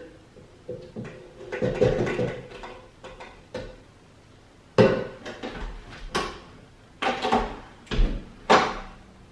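Kitchen clatter: a run of irregular knocks and clunks as containers, dishes and utensils are handled and set down. The sharpest knocks come about five seconds in and in a cluster near the end.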